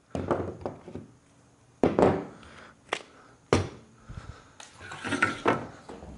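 Hand tools and sheet metal being handled on a plywood workbench: a string of sharp knocks and clatters, the loudest about two seconds in, then a scraping rattle near the end.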